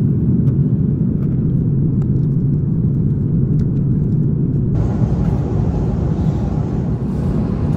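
Airbus A330-300 cabin noise in flight: a loud, steady, deep rumble of engines and airflow at the window seat. A little under five seconds in it cuts abruptly to a steady, hissier cabin noise.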